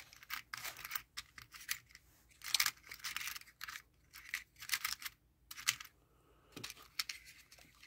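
Small plastic-insulated crimp terminals clicking and rattling against each other and the compartments of a plastic organiser box as fingers sift through them, in irregular bursts with brief lulls.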